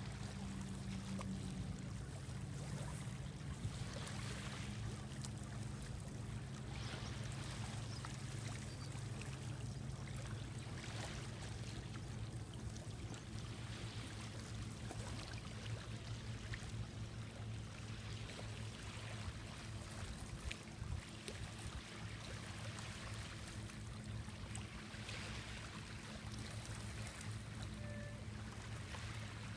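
Small waves lapping at the lake shore, a soft wash every second or two, over a steady low hum.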